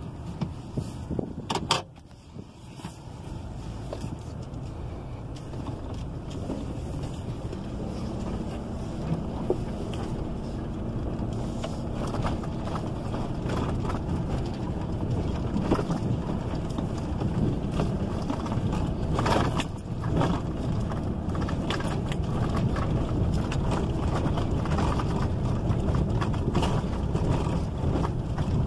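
Vehicle driving, heard from inside the cab: steady engine and road noise that builds gradually, with a sharp click about two seconds in and a few more clicks and rattles later.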